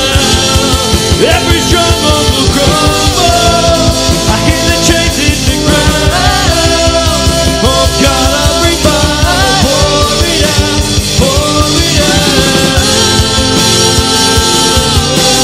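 A live worship band playing an upbeat rock-style song: drum kit keeping a steady beat under bass, acoustic guitar and keyboard, with lead and backing voices singing held notes.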